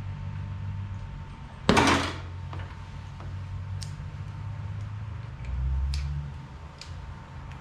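Metal clanking of hand tools and the just-removed stock rear shock absorber being handled on a Harley-Davidson Road Glide. One loud clank comes about two seconds in, then a few light metallic clicks, over a steady low hum.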